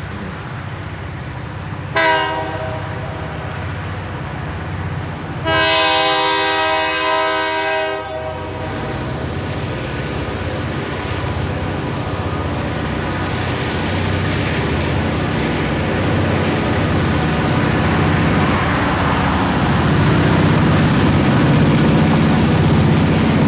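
Approaching freight train led by SD40M-2 and SD40-2 diesel locomotives, their EMD 16-cylinder two-stroke engines rumbling. The multi-chime air horn sounds a short blast about two seconds in, then a longer blast of about two and a half seconds. The engine rumble grows steadily louder as the locomotives near, with wheel clicks near the end.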